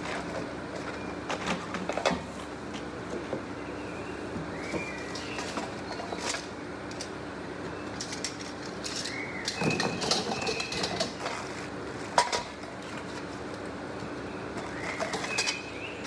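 Clear plastic wrapping crinkling and rustling as packed grill parts are handled, with light knocks of the parts and one sharp knock about three-quarters through. A bird chirps briefly a few times in the background over a steady low hum.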